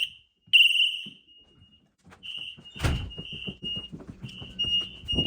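Home security alarm sounding a fire panic: shrill high-pitched beeps in a three-beep temporal pattern, the last ending about a second in. After a short gap the tone returns quieter and broken up, with knocks and thuds around it, the loudest near the middle and end.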